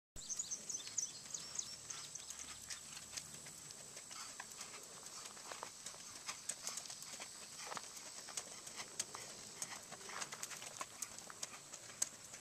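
Hoofbeats of a shod racking horse ridden at its gait over turf and packed dirt: a quick, continuous run of light clip-clops.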